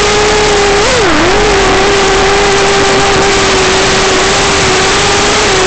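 Electric motor and propeller of an FPV aircraft whining at a steady pitch over a loud hiss. About a second in, the pitch briefly rises, dips and settles back, as the throttle shifts.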